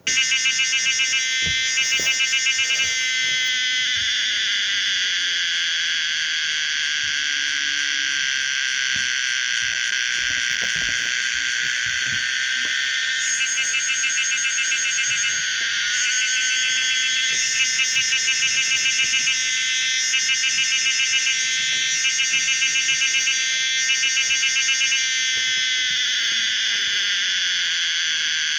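Song of the cicada Pomponia linearis: a loud, high-pitched continuous buzz broken by short stretches of rapid pulsing, twice near the start and then in a run of pulsed bursts about one to two seconds long in the latter half.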